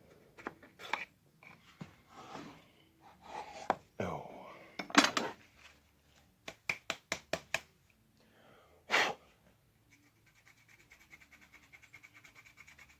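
Small hand tools clicking and scraping against the rifle parts, with a quick run of about seven sharp clicks midway and a fast, faint, even ticking near the end. A heavy exhale breaks in about nine seconds in.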